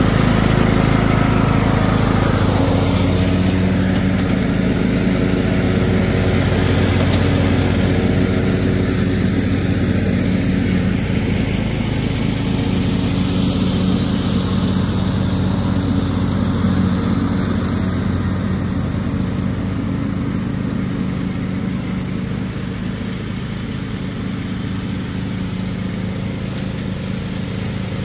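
Riding lawn mower's engine running steadily while mowing, its hum slowly growing fainter as the mower drives away.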